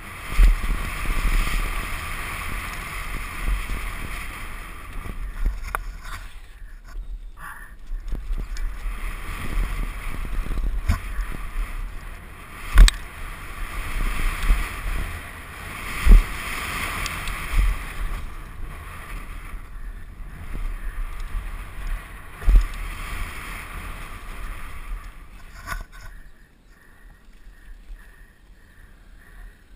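Downhill mountain bike heard from a helmet camera: steady wind and tyre rush over the dirt trail, with sharp thumps at about 13, 16 and 22 seconds, typical of jump landings and hard hits. The noise drops sharply near the end as the bike comes to a stop.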